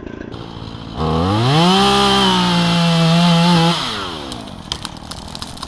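Chainsaw revving up about a second in, held at high speed for about two seconds, then dropping back toward idle. A few sharp clicks follow near the end.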